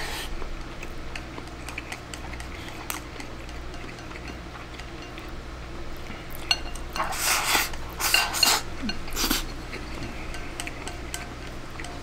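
Chopsticks clicking and scraping against a ceramic rice bowl as egg-and-rice is shoveled into the mouth, with a few short slurping sounds between about seven and nine seconds in.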